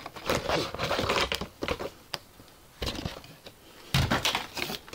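Clear plastic packaging crinkling and rustling as a lightsaber is pulled out of its box, with several knocks, the loudest about four seconds in.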